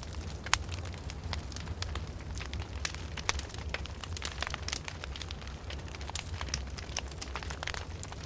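Fireplace fire crackling, with many irregular sharp snaps and pops, the loudest about half a second in, over a steady low hum.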